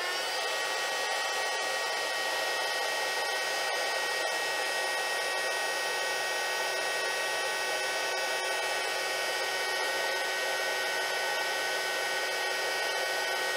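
Mini heat gun running, shrinking heat-shrink tubing onto a wire: a steady fan whine over a rush of air, coming up to speed right at the start and then holding one pitch.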